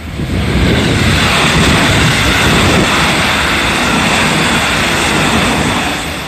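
A 313 series electric multiple unit passes close by at speed. Its wheels and running gear give a loud rushing, rumbling noise that builds within the first second, holds for about five seconds, then starts to fade.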